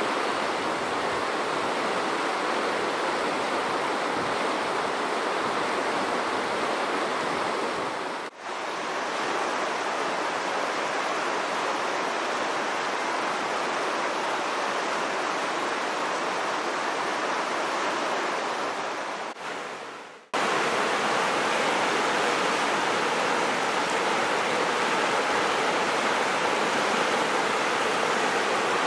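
Shallow mountain river rushing over stony rapids: a steady, even wash of white water. It dips briefly twice, about eight and twenty seconds in, and runs a little louder after the second dip.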